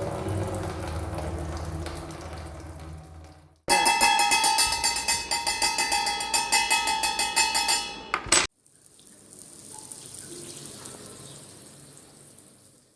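Water running steadily from a tap, stopping after about three and a half seconds. Then a louder, rhythmic ringing sound, about four strokes a second, lasts about four seconds, followed by a soft hiss that swells and fades away.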